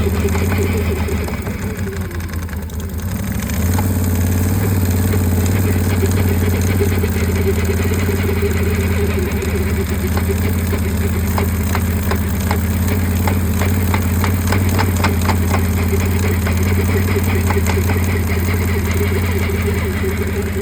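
Can-Am Outlander 1000 XXC's V-twin engine running steadily at low revs, its note dipping briefly about two seconds in. From about ten seconds in, a run of sharp knocks sounds over the engine for several seconds: the clunk this ATV makes only when creeping along at 1-4 mph.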